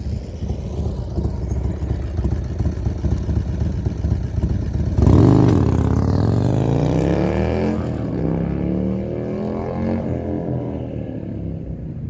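Harley-Davidson Dyna Super Glide V-twin with a Supertrapp SuperMeg exhaust, a 95-inch high-compression big bore and 510 cams, riding past. The exhaust grows as the bike approaches and is loudest as it passes about five seconds in. It then drops in pitch and fades as the bike pulls away, and is cut off at the end.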